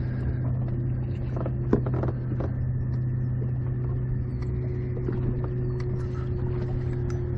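Boat motor running with a steady low hum, with a few light clicks and knocks.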